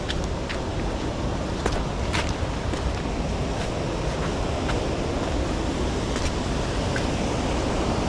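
Steady rushing of river water over rocks, with wind buffeting the microphone and a few faint, irregular clicks of footsteps and gear on granite boulders.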